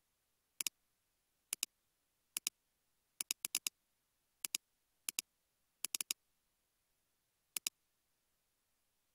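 Computer mouse button clicking: sharp clicks in close pairs, about a dozen in all, with quick runs of double-clicks about three and a half and six seconds in.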